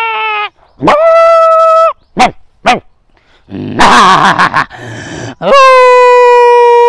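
A man imitating a jackal howling and a dog barking with his own voice. Held howls with a sliding start, two short yips, a rough noisy bark about four seconds in, then a long steady howl near the end.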